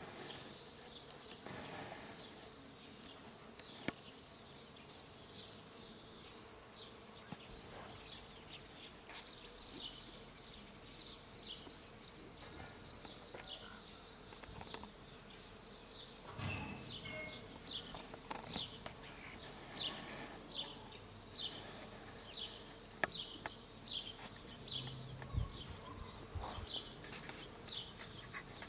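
Faint outdoor spring ambience: insects buzzing steadily, with short high chirps repeating about twice a second from about halfway through.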